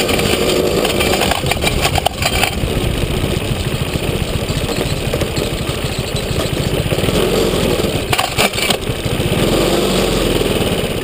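Small engine of a kids' Chinese-made ATV running steadily while riding along a dirt trail, with bursts of rattling about two seconds in and again about eight seconds in.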